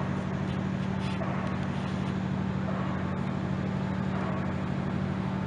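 Steady low engine hum with a fast, even throb, unchanging throughout.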